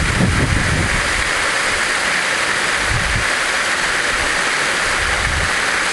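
Waterfall rushing: a steady hiss of falling water pouring down a rock face, with a few brief low rumbles.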